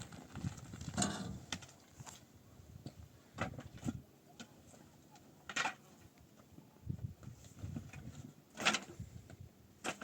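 Irregular knocks and clatters a second or more apart, the loudest about a second in, halfway through and near the end.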